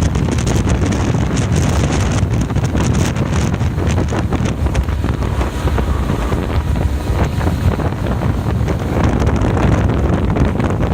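Strong wind buffeting the microphone, a loud steady low rumble with crackling gusts throughout.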